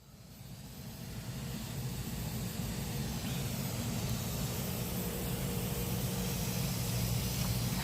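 Air-conditioner outdoor unit running with a steady low hum under an even hiss, fading in over the first couple of seconds.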